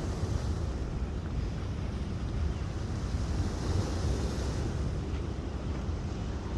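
Wind buffeting the microphone: a steady, rumbling roar, strongest in the low end, with no calls or other distinct events.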